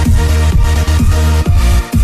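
Background electronic dance music with a steady kick-drum beat about twice a second over a sustained bass.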